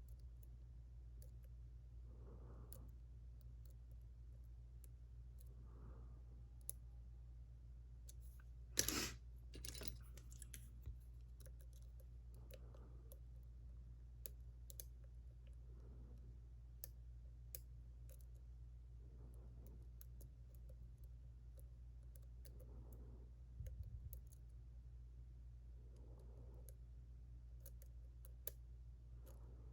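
Faint, scattered clicks and light scrapes of a lock pick working the pins of a JPM Surf dimple lock, with a louder rattle of clicks about nine seconds in, over a steady low hum.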